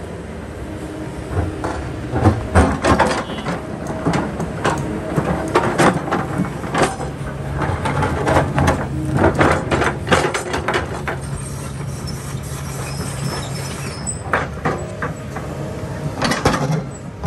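Kobelco excavator working: its engine runs steadily while the steel bucket knocks and scrapes against rock in repeated clanks and grating stretches.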